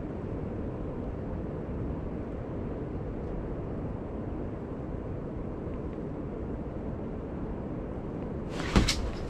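Steady low rumble of wind against the ice-fishing shack. Near the end comes a sudden short clatter as the rod and reel are jerked up in a hook set.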